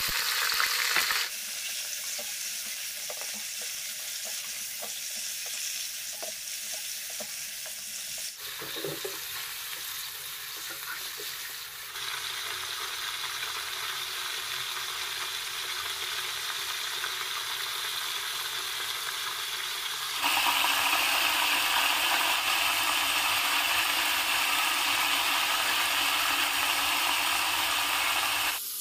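Mutton pieces sizzling as they fry in hot oil in a nonstick pan: a steady hiss that steps up and down in level a few times and is loudest in the last third.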